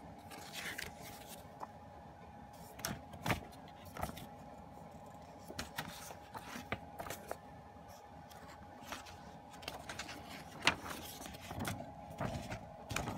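Paper rustling and light taps as the pages of a CD album's photo booklet and its cardboard packaging are handled and turned, in irregular short bursts over a faint steady hum.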